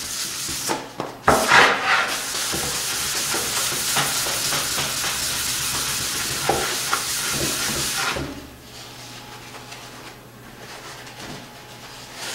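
A cloth wiping lacquer thinner and denatured alcohol off an oil-finished walnut board, a steady rubbing hiss of back-and-forth strokes that stops about eight seconds in.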